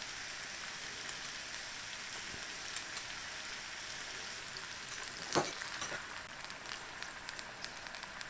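Vegetables stir-frying in peanut oil in a large pan, just after soy sauce went in: a steady sizzling hiss with scattered small crackles, and one sharper knock a little past the midpoint.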